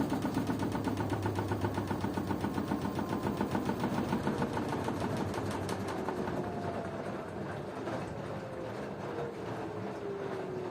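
LG washing machine drum slowing down at the end of a spin: the rhythmic whirring of the turning drum fades, and from about six seconds in the motor's whine falls steadily in pitch as the drum winds down.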